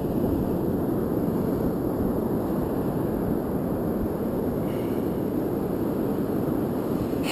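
Steady low wind noise rumbling on a GoPro Hero 2's microphone, an even rush with no let-up.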